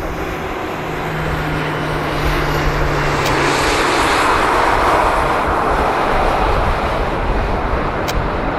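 Airbus A220-300's Pratt & Whitney PW1500G geared turbofans on the landing roll: a broad jet roar that swells to its loudest about four to five seconds in and then eases, typical of reverse thrust after touchdown. A steady low hum runs under it for the first few seconds.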